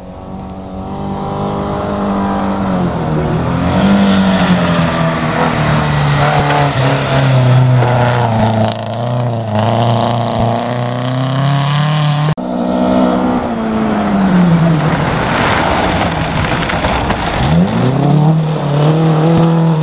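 Historic rally cars on a gravel stage, their engines revving hard and dropping with each gear change as they approach and slide past, one car after another.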